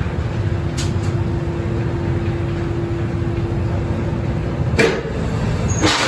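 Coal train hopper wagons rolling slowly under a load-out chute, a steady low rumble with a steady hum that stops just before the end. There is a sharp bang about a second in and two louder bangs near the end, after which coal pours from the chute into the wagon with a rushing hiss.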